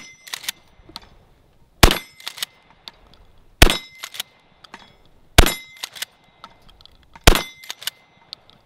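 Pump-action 12-gauge shotgun firing buckshot, four shots at an even pace about every two seconds. After each shot there is a double clack as the pump is worked back and forward.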